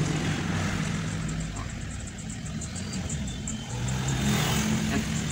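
A motor vehicle engine running steadily, dipping slightly and then growing louder from about four seconds in.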